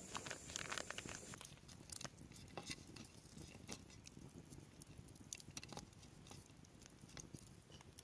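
Flour sifting into a glass bowl as a soft hiss for about the first second and a half. Then fingers crumble fresh yeast in a small bowl, making faint, scattered crackly clicks.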